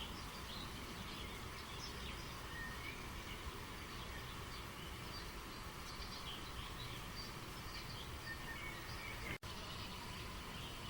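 Steady rush of flowing stream water with small birds chirping throughout. About nine seconds in, all sound briefly drops out.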